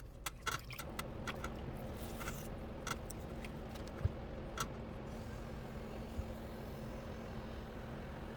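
Electric potter's wheel motor running with a steady hum that comes in about a second in, with a scatter of light clicks and knocks from tools or hands over the first few seconds.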